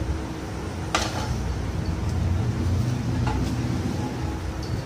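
A sharp metallic clank about a second in as a Royal Enfield Bullet's aluminium crankcase half is set down on a steel-bar stand, followed by a low rumble and a few light knocks as it is handled.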